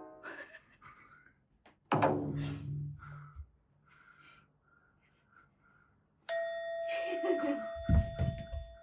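Comedy sound-effect clips played back: a short pitched effect that falls in pitch about two seconds in, then a bright bell-like ding about six seconds in that keeps ringing, with a few low thumps near the end.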